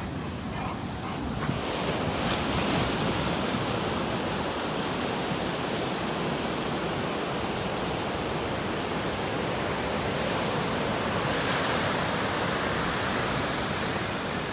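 Ocean surf breaking and washing up the shore in a steady rush of noise that grows louder about a second and a half in.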